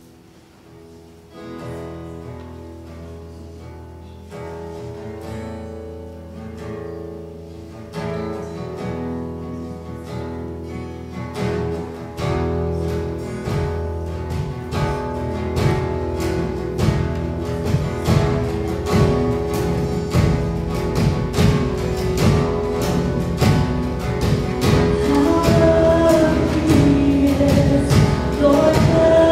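Live worship band with acoustic and electric guitars and a drum kit playing a song's instrumental intro. It opens softly on sustained chords, the drums come in about twelve seconds in, and the music builds steadily louder.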